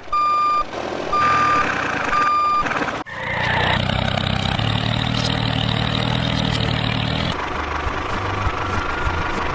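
Truck reversing alarm beeping three times, about once a second, then a heavy vehicle's engine running steadily.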